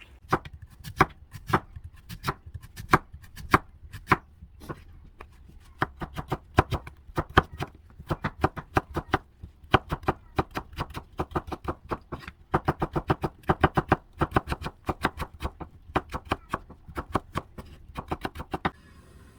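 Knife chopping food on a cutting board: single strokes spaced apart at first, then quick runs of rapid strokes, stopping shortly before the end.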